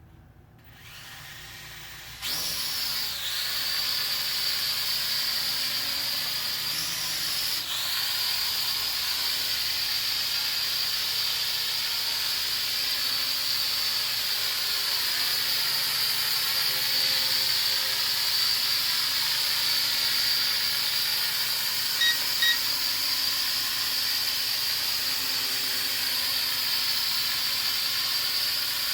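Budget toy quadcopter's small motors and propellers spinning up about two seconds in, then a steady high-pitched whine with a rushing hiss as the drone flies, shifting once about seven seconds in. Two short beeps sound about 22 seconds in.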